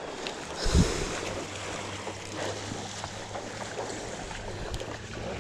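Wind on the microphone and river water moving around a wading angler, with a single low thump about a second in and a steady low hum from then on.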